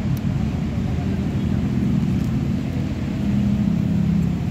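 Steady low mechanical rumble of vehicle noise, the loudest sound throughout, with a few faint clicks.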